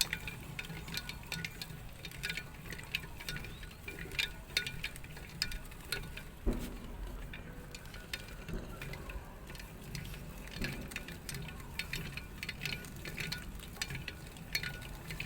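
Irregular small metallic clicks, clinks and light knocks of metal lathe parts being handled, over a steady low hum.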